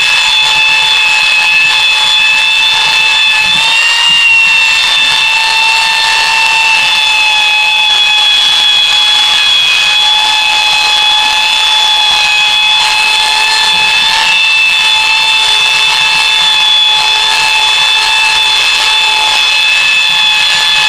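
Handheld belt sander running steadily with a high whine while sanding the end-grain face of a poplar and alder cutting board; the pitch wavers slightly now and then.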